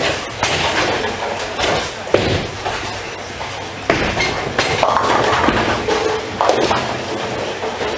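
Bowling-alley din: several sharp knocks and thuds of bowling balls and pins across the lanes, over a steady background rumble.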